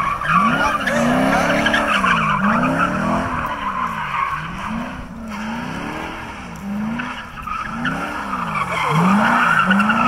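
Chevrolet Corvette's V8 spinning donuts: the engine revs rise and fall about once a second while the rear tyres squeal and smoke against the pavement.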